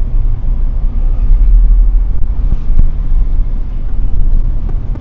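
Steady low rumble of a moving car's engine and road noise, heard from inside the car.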